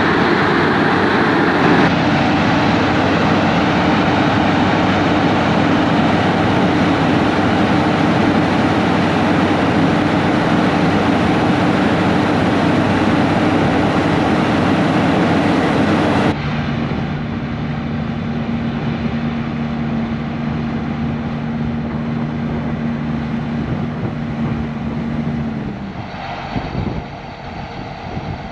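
Diesel harvest machinery running steadily with an even engine hum. The sound switches abruptly to a different machine's steady hum about 16 seconds in, and drops quieter near the end.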